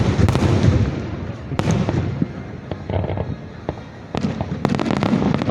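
Fireworks finale: rapid crackling bursts and deep booms of aerial shells going off in quick succession, easing briefly near the middle and building again in the last second or so.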